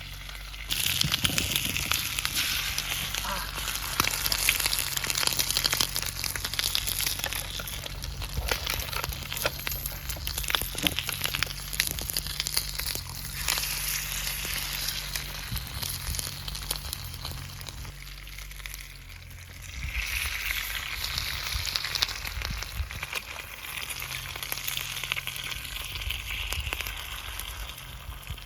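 Thick-cut bacon and eggs sizzling in a hot black-iron frying pan, with dense spitting crackle. The sizzle jumps louder about a second in, as the eggs go into the fat, then dips briefly and flares up again about two-thirds of the way through.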